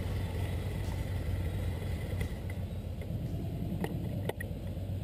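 Motorcycle engine idling with a steady low rumble; a couple of sharp clicks about four seconds in.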